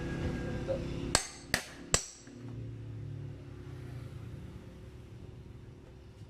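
Three sharp hammer blows on a metal wrench set on the motorcycle's clutch hub, close together about half a second apart, each with a brief metallic ring. A low steady hum carries on underneath.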